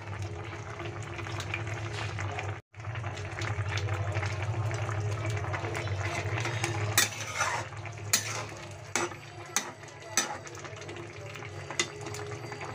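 Teasel gourd and fish curry simmering in a pan while a metal spatula stirs it, with a steady low hum underneath. From about seven seconds in, a series of sharp clicks and scrapes as the spatula knocks against the pan; the sound cuts out briefly a little before three seconds in.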